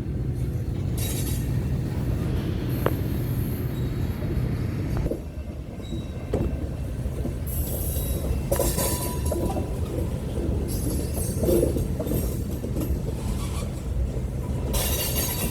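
Freight cars rolling past: a steady low rumble of wheels on rail, with high wheel squeal rising and fading several times, strongest about halfway through and again near the end.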